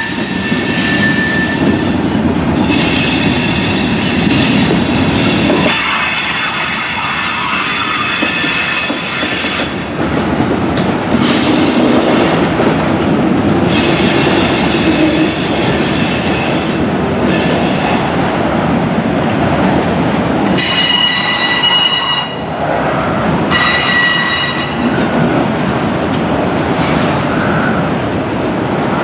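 Freight train cars rolling past: a steady rumble and rattle of steel wheels on rail, with high wheel squeal coming and going several times, loudest about a third of the way in and again past two-thirds.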